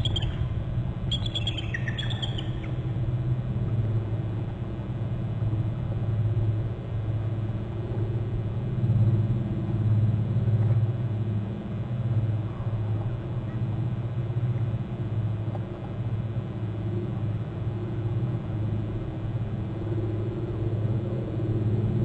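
Adult bald eagle giving a short run of high chirping calls, some falling in pitch, in the first two or three seconds, calls that sound like food calls. A steady low rumble runs underneath and is the loudest sound.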